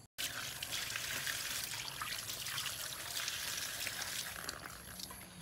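Water from a tap pouring steadily onto bok choy leaves in a woven basket, a constant splashing rush. It starts abruptly and eases off near the end.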